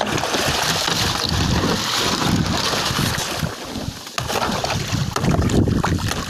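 Wind buffeting the microphone over water splashing as a hooked shark thrashes against the side of a small fishing boat.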